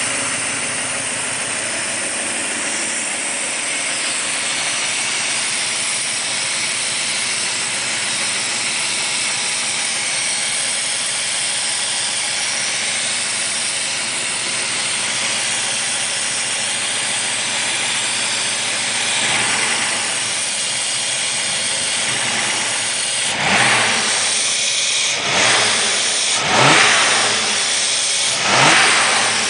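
Mercedes-Benz 380SL V8 idling under a loud, steady hiss from a major vacuum leak at the rear, driver's side of the fuel distributor, under the air metering unit. Near the end the throttle is blipped four times, and the engine revs up and drops back each time.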